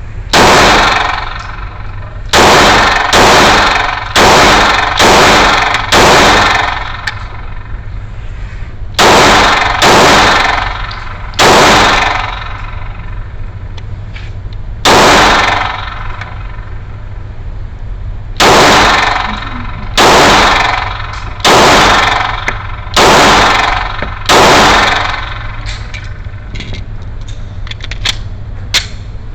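Glock 19 Gen 6 9mm pistol firing about seventeen single shots at an uneven pace, some in quick runs about a second apart and some with longer pauses, each shot loud and sharp with a short ringing tail.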